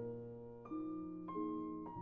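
Background music: slow piano, a new note or chord struck about every two-thirds of a second and left to ring.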